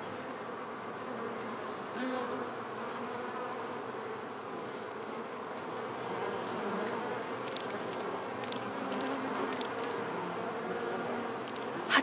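Honeybees buzzing in the hive: a steady, even hum, with a few faint ticks in the second half.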